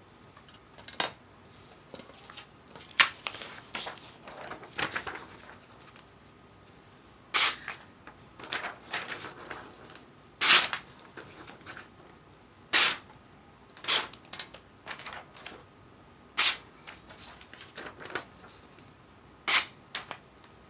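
Handling noises from a knife and its sheath: about eight sharp clicks and knocks spaced a second or more apart, with brief scraping and rustling between some of them.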